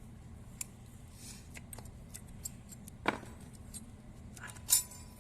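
Loose steel parts and tools clinking and knocking as the truck's rear differential is taken apart: scattered light clicks, a dull knock about three seconds in, then a loud ringing metal clink near the end.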